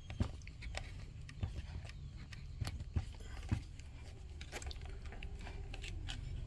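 Light handling noises: scattered small clicks and knocks from hands working on an amplifier chassis, over a steady low hum.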